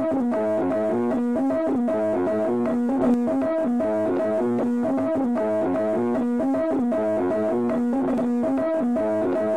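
Instrumental background music: a quick, repeating run of short notes over a steady held low note.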